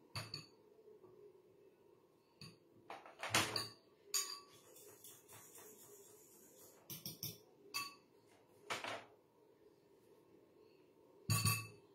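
A spoon and a fork clinking and scraping against a ceramic bowl and a plastic tub as ginger-garlic paste is scooped into a marinade of spices and curd: a scatter of separate clinks and knocks, the loudest about three and a half seconds in and another pair near the end.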